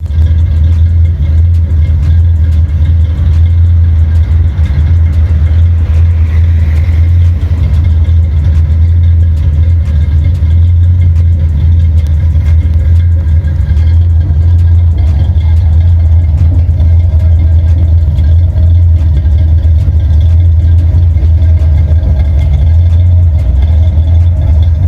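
1973 Dodge Challenger's V8 engine idling steadily, with a strong deep exhaust note.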